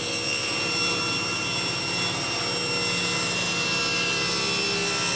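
Table saw running and ripping a half-inch cherry board lengthwise along the fence: a steady high motor-and-blade whine over the sawing noise of the wood.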